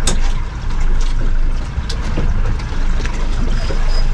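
Steady low rumbling noise aboard a small fishing boat on the water, with a couple of sharp clicks.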